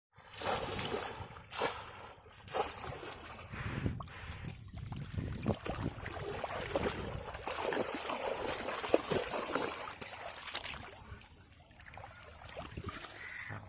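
Shallow water splashing and sloshing, with several sharp splashes in the first few seconds and a steady high-pitched hiss underneath.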